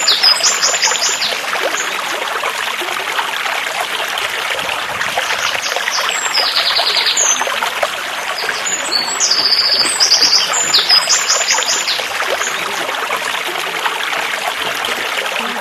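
Stream water running and trickling steadily. A small bird calls in quick runs of high repeated notes near the start, about six seconds in, and again around nine to eleven seconds.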